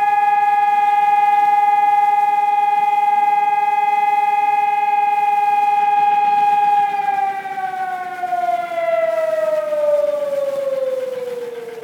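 Seismic alert siren sounding for an earthquake drill. It holds one steady, loud tone, then about seven seconds in slides slowly down in pitch and fades as it winds down.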